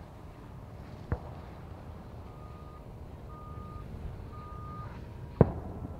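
Fireworks shells bursting with sharp bangs, a smaller one about a second in and a much louder one near the end. In between, a reversing beeper sounds three short beeps about a second apart.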